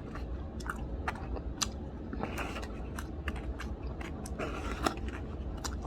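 A person chewing and biting into grilled chicken, with scattered small sharp clicks at irregular intervals.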